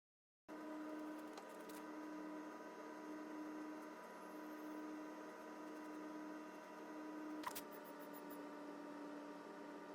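A faint steady hum of several held tones, starting abruptly about half a second in, with a single sharp click about seven and a half seconds in.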